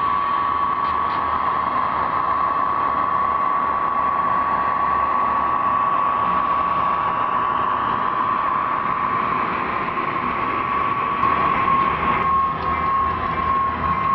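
HO-scale model diesel locomotives running, a steady high whine over a hiss. The hiss drops away about twelve seconds in.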